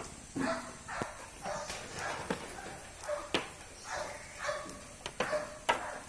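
Goats bleating in short, repeated calls, one after another every half second or so, with a few sharp knocks among them.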